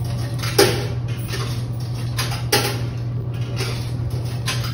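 Clunks and knocks from a snack vending machine being worked by hand, three sharper ones about two seconds apart, over a steady low hum.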